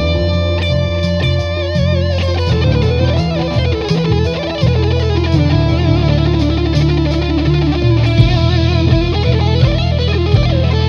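Jackson Dinky JS32 electric guitar playing a lead in E Phrygian dominant, with held notes bent into wide vibrato, over a backing track with a steady bass part.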